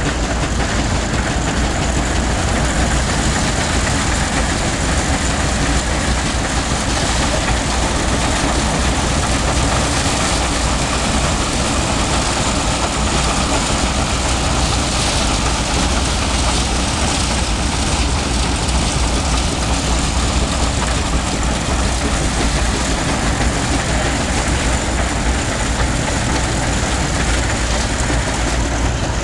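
Steam traction engine driving a threshing machine by a long flat belt, threshing beans: the separator, belt and engine running steadily together as one dense, even machinery noise.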